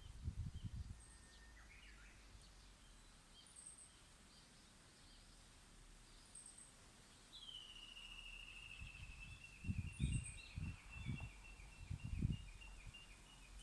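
Japanese bush warbler singing. About two seconds in it gives a short whistle and a quick flourish. From about seven seconds it gives a long falling whistle that runs into a fast series of repeated notes, the valley-crossing call.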